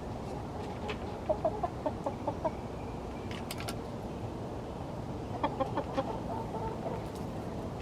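Hens clucking in two quick runs of short notes, the first about a second in and the second near the end, over steady low background noise.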